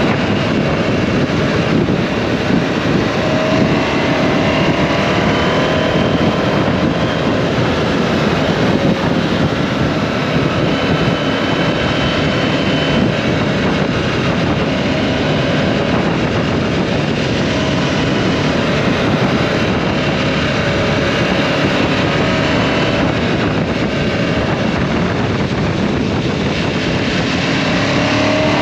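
KTM 790 Adventure's parallel-twin engine running at road speed, its note shifting a little with the throttle, under steady wind noise on the microphone.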